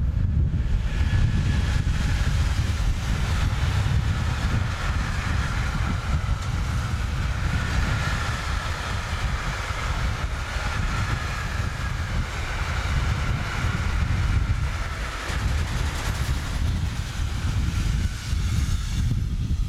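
Electric-hauled freight train of tank-container wagons passing at speed: steady rumble and clatter of steel wheels on the rails. The train noise fades near the end, leaving wind buffeting the microphone.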